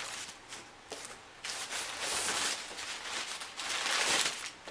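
Rustling and scraping of packaging being handled, in several short bursts, the longest about a second long.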